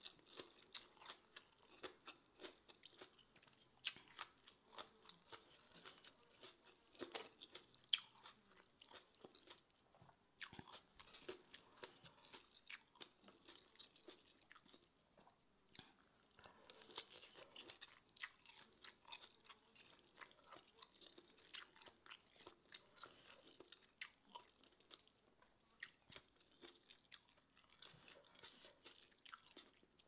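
Quiet, close-up mouth sounds of a person chewing and crunching seafood papaya salad, with many small, sharp clicks and smacks.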